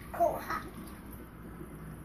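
A young child's short babbling vocal sound about a quarter of a second in, over the steady low hum of the aquarium's air pump.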